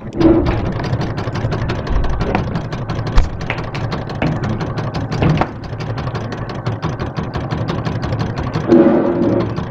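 Electric sewing machine running at a steady pace: a fast, even ticking of the needle stroke over the motor's hum, with a short rise in the motor's pitch just after the start and again near the end.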